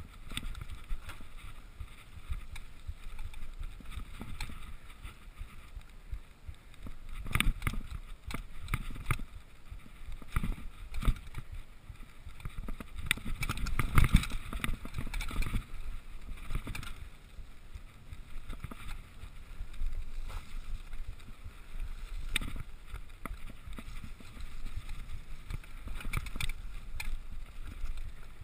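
GT Chucker XS1 mountain bike ridden fast down a dirt forest trail: tyres rumbling over the ground and wind rushing on the microphone, with frequent knocks and rattles of the bike over bumps. The heaviest jolts come about 7 and 14 seconds in.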